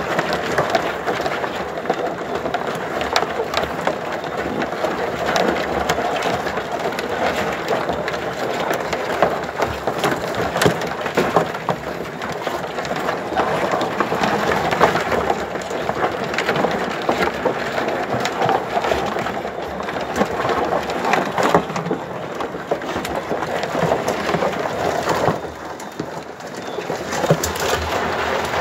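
Live crabs crawling over one another in a plastic drum, making a steady, dense crackle of many small clicks as their shells and legs scrape together and against the plastic.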